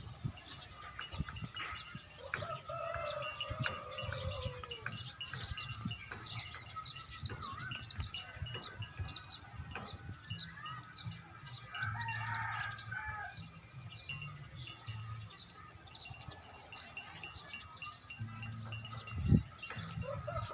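Goats bleating: one long falling bleat about two seconds in and another near the middle. Constant high chirping and tinkling runs throughout.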